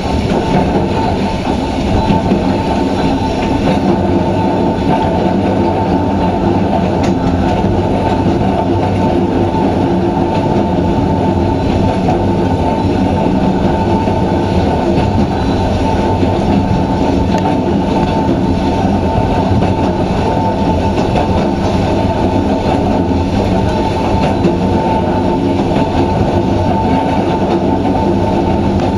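Kintetsu 260 series narrow-gauge electric train running steadily, heard from the driver's cab: the loud hum and growl of its nose-suspended traction motors and gears over the noise of wheels on rail.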